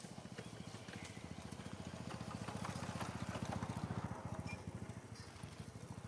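An engine running with a fast, even low pulse, growing louder to a peak about three and a half seconds in and then easing off, with light crackles of dry leaves over it.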